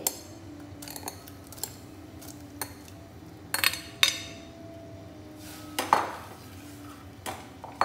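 A metal spoon scraping and clinking against a clear bowl and the rim of a stainless-steel pressure cooker as dough pieces are pushed into the pot, with several sharp clinks, the loudest about four and six seconds in.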